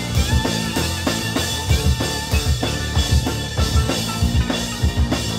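Live band of guitar, banjo, bass, violin and drum kit playing a song, the drums keeping a steady beat.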